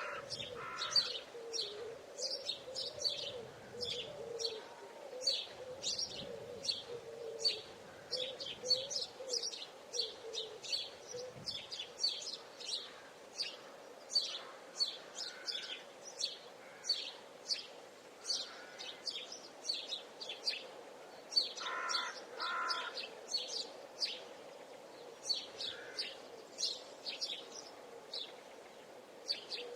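Woodland birds singing, with rapid high chirps several times a second throughout, a low wavering call in the first half, and a few lower two-note calls about two-thirds of the way through.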